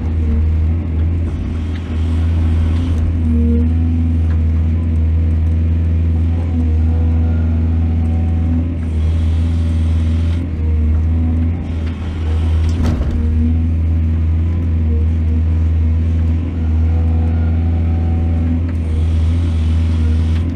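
Hydraulic excavator's diesel engine running steadily under load while digging, with a single sharp knock about thirteen seconds in.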